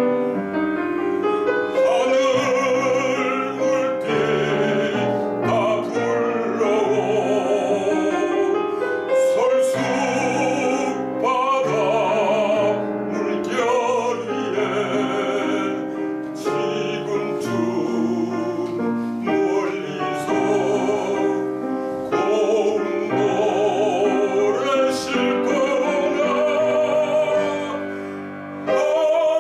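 A baritone singing a Korean art song in classical style with vibrato, accompanied by piano.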